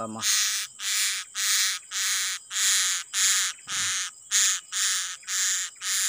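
A young male blue-crowned hanging parrot (serindit) held in the hand giving a rapid run of about ten harsh screeches, evenly spaced at about one and a half a second, while it bites the handler's finger.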